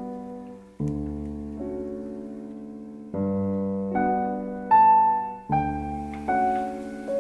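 Slow, gentle piano music, a new chord struck about every second, the melody climbing higher near the middle.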